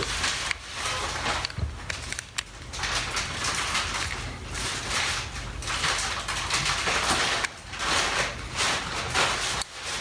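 Irregular scraping and crackling from prying and working the original battery out of an opened Panasonic ES-RL21 electric shaver, coming in uneven surges with a few sharp clicks.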